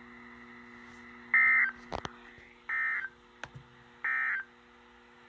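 Three short bursts of Emergency Alert System digital data tones, the End of Message code that closes a warning, each about a third of a second long and about 1.4 s apart. Two sharp clicks fall between the bursts over a steady low hum.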